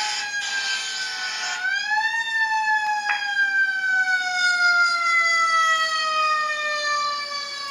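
Emergency-vehicle siren wailing. Its pitch climbs quickly, then falls slowly over several seconds, and climbs again about two seconds in.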